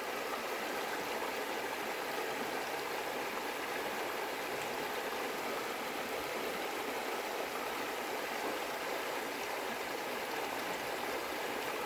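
A creek's water rushing steadily, an even, unbroken sound.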